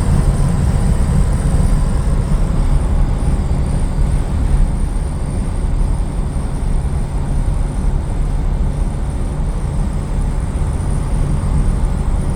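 Dodge Charger's Chrysler 318 V8 running steadily while driving, with a deep engine and road rumble heard from inside the car.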